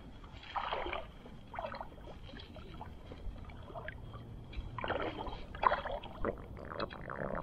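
Small waves lapping and splashing at the water's edge, in irregular washes that come and go.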